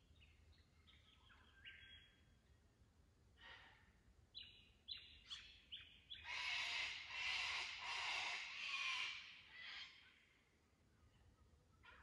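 Wild birds calling: a few short whistled notes, then a run of sharp downward calls that build, about six seconds in, into a loud, harsh, pulsing chatter lasting some three seconds before it tails off.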